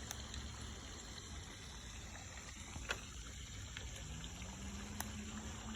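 Faint trickling water, with a couple of small sharp ticks. A faint low hum comes in about four seconds in, rising slightly, then holding steady.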